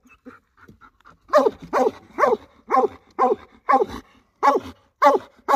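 A hunting dog barking steadily at a tree where it has a raccoon, about two barks a second. The barks start about a second in, after a brief lull.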